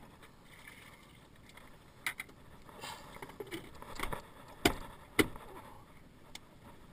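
Plastic buckets and their lids being handled and set down, giving a few sharp knocks and clacks, the two loudest close together a little past the middle.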